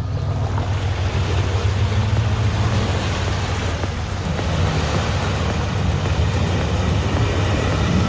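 Off-road 4x4's engine running steadily, with a constant rushing noise over it.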